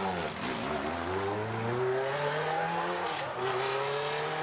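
Engine accelerating, its pitch climbing steadily, dropping briefly about three seconds in as at a gear change, then climbing again.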